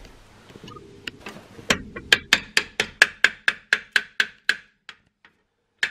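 A quick, even run of sharp metal taps, about five a second, each with a short ring, from tool work on a car's rear brake hub and parking-brake drum. The taps start a little under two seconds in and stop about four and a half seconds in.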